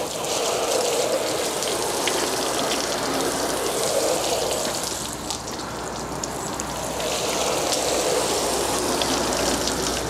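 Water spraying from a garden-hose spray gun and spattering onto a caravan's fibreglass front panel, a steady hiss of spray as cleaning cream is rinsed off.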